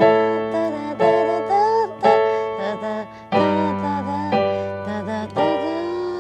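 Digital piano playing slow pop-song chords, each chord struck about once a second and left to ring, the bass note changing about halfway.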